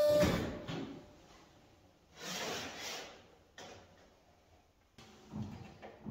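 Short sliding scrapes and knocks from a stainless-steel sheet being handled and worked, about four separate strokes. The first, at the very start, is the loudest and cuts off a steady ringing tone.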